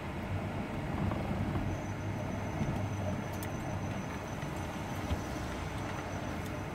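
Steady engine and tyre noise heard inside the cab of a vehicle driving slowly on a snow-covered road, with one brief click about five seconds in.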